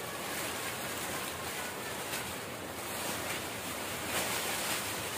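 Steady hiss of heavy rain, with the rustle and light crunch of fried krupuk crackers being tipped from a basket into a plastic bag.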